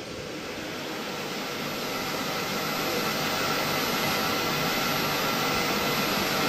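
Large congregation applauding and cheering: a steady wash of noise that swells gradually.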